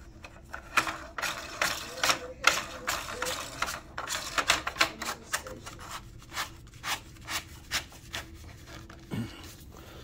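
Plastic mounting nut being screwed up the threaded plastic housing of a pop-up power outlet: a run of irregular clicks and rasps of plastic threads, several a second, thinning out over the last few seconds.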